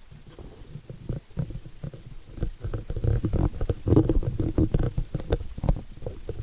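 Handling noise on a small camera's microphone: irregular low rumbling bumps and scattered sharp clicks, which grow louder about halfway through as the camera is moved.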